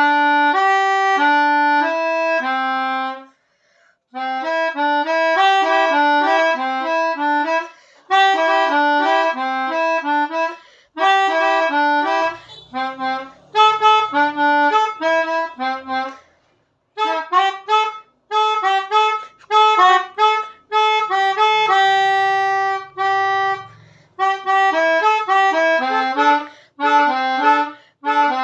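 Harmonica-type reed instrument playing imitations of telolet bus-horn melodies: short phrases of two-note chords with brief pauses between them.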